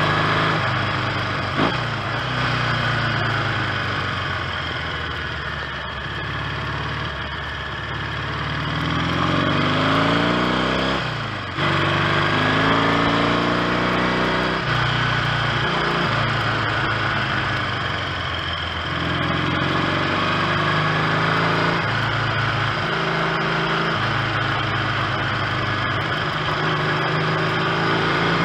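1970 Triumph T100C's 500 cc parallel-twin engine on the road, its pitch rising under acceleration and dropping sharply at gear changes, about 11 and 15 seconds in. It has new ignition points fitted and runs without a misfire.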